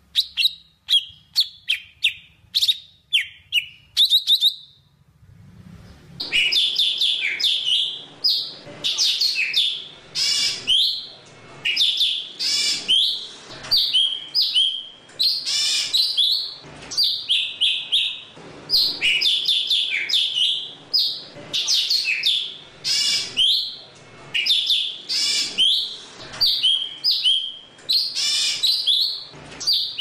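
Golden-fronted leafbird singing: first a quick series of sharp whistled notes, then, after a short pause, a continuous stream of rapid, varied chattering and whistled phrases from about six seconds in.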